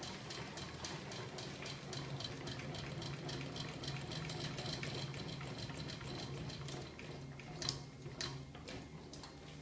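Homemade magnet-motor rig running: a steady hum with fast, even clicking from the spinning rotor. The clicking thins out to a few separate clicks in the last couple of seconds.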